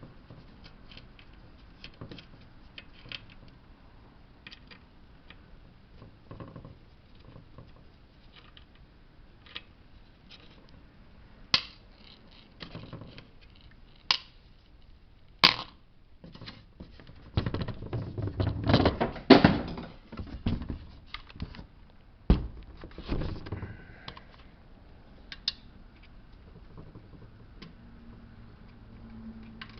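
Scattered light clicks and taps of a screwdriver and small screws on a car radio's casing as its four T10 Torx face-plate screws are backed out, with a louder stretch of rattling and scraping as the radio unit is handled a little past the middle.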